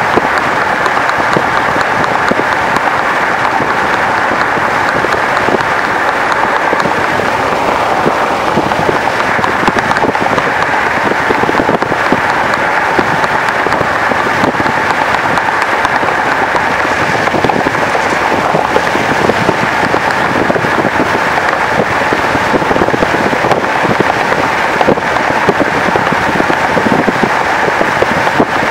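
Steady road noise from a moving vehicle: a dense, even crackling hiss of tyres and wind with no engine note standing out.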